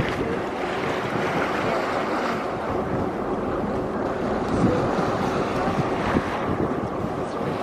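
Wind buffeting the microphone on a moving Mersey ferry, over the steady noise of the boat underway and its water.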